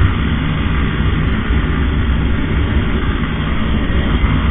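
Honda motorcycle engine running at a steady speed under wind and road noise, heard from a camera on the rider.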